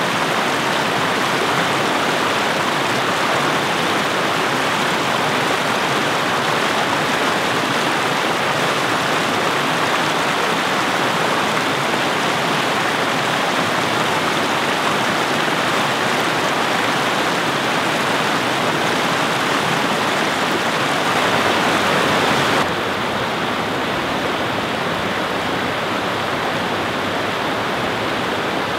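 Shallow stream rushing steadily over rock ledges and small rapids, loud and even. Near the end it drops slightly and turns a little duller as the view changes to another stretch of the cascade.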